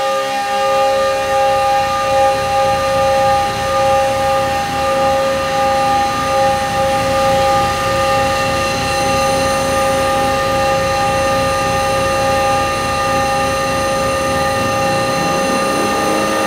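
Eurorack modular synth: Make Noise Strega tones fed through a feedback loop of Make Noise echo modules, with the Echophone's pitch shifter in the feedback path, building a sustained harmonic wash. Several steady tones hold over a fluttering low rumble, and a rising sweep comes in at the bottom near the end.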